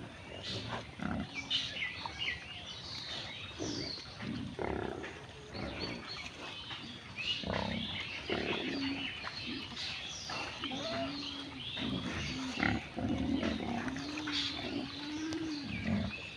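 Domestic pigs grunting repeatedly in short bursts, with a longer drawn-out call that wavers in pitch near the end.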